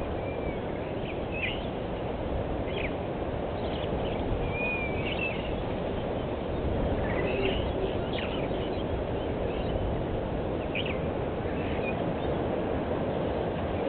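Several short bird chirps and whistles, some sliding up or down in pitch, scattered over a steady low rush of outdoor background noise.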